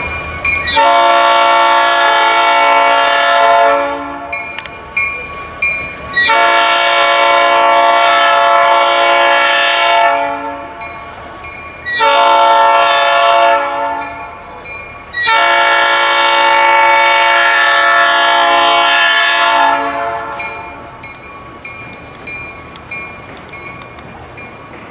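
Train horn sounding four blasts, long, long, short, long: the pattern of a grade-crossing signal. Each blast starts abruptly and holds a steady chord-like tone.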